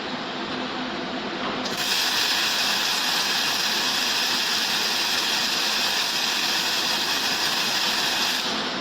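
Automatic cuplock welding machine at work: a steady, even hiss of the weld sets in abruptly about two seconds in, holds for some six seconds and cuts off just before the end, over the machine's steady running noise.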